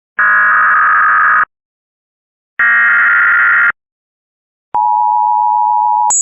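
Emergency Alert System SAME header: two bursts of screeching digital data tones, each about a second long with a second's gap between them. These are followed by the steady two-tone EAS attention signal, which jumps abruptly to a much higher pitch right at the end.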